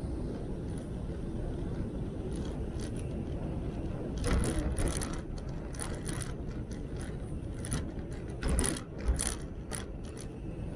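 Velomobile rolling along a cycle path: a steady low rumble of tyres and drivetrain carried through the shell, broken by two clusters of sharp clicking rattles, about four seconds in and again about eight to nine seconds in.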